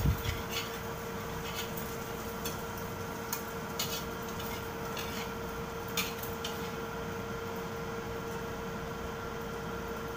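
Metal spatula scraping and tapping against an aluminium wok while scrambling egg: about a dozen short scrapes and knocks, most of them in the first six seconds, over a steady hum.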